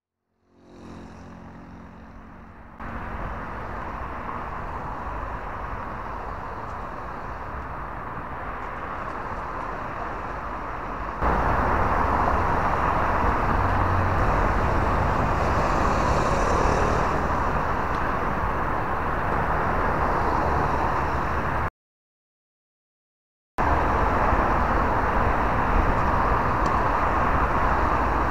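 Steady outdoor background rumble with no distinct events. It steps up in level about eleven seconds in and cuts to silence for about two seconds later on.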